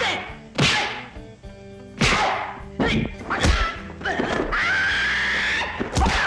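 Kung-fu fight sound effects: a series of sharp whip-like swishes as the fighters move and strike at each other, then a long, high-pitched battle cry about halfway through, followed by a shorter shout near the end.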